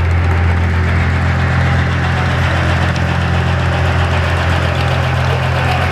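Diesel engine driving a sawmill, running steadily with a deep, even hum.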